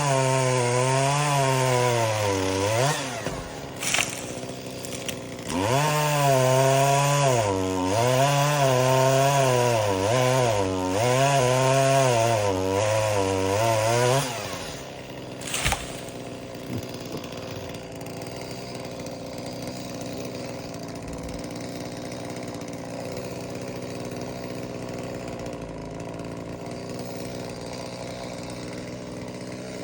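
Chainsaw revving and cutting, its engine pitch rising and dipping over and over, with a break about three seconds in. About fourteen seconds in it drops to a steady idle that runs on.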